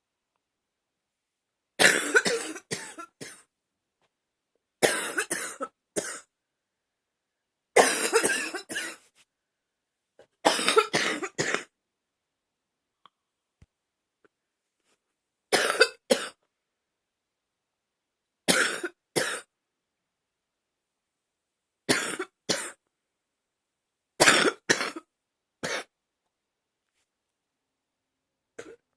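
A woman coughing in repeated bouts of two to four sharp coughs each, about eight bouts spaced a few seconds apart, with silence in between.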